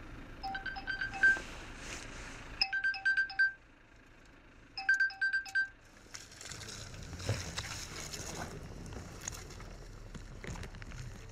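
Three short runs of electronic beeps, about four quick beeps in each run. From about halfway through there is a rushing noise with a low rumble, fitting a car's wheels churning through deep volcanic ash.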